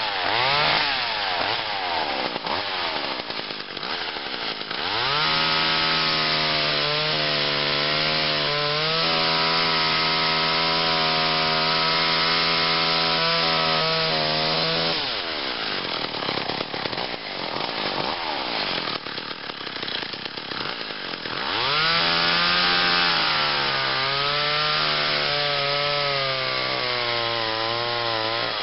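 1986 McCulloch Mac 110 chainsaw with a 2.0 cubic inch two-stroke engine, revving, then held at full throttle for about ten seconds while cutting through a log. It drops back to a lower, uneven running speed, then cuts a second log, its pitch sagging slowly under the load near the end.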